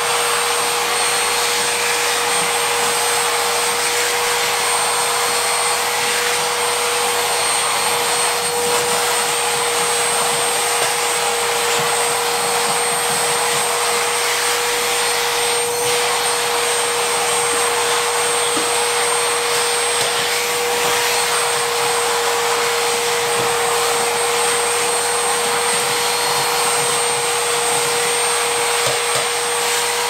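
Vacuum cleaner running steadily, a constant rush of air with a steady whine, as its hose sucks up clumps of cut hair from a wooden floor.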